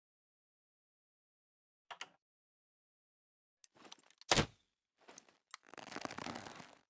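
Makeshift crossbow mechanism clicking, with one sharp snap a little past four seconds in, then about a second of rustling noise near the end, each sound separated by dead silence.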